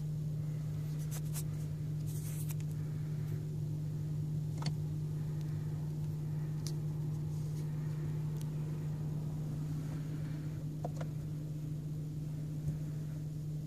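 Steady low hum inside a Kia car's cabin, with a few faint clicks now and then.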